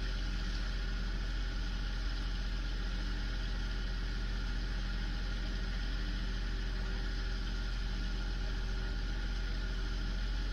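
Fishing boat engine running steadily at idle, an even drone with a strong low hum and no change in speed.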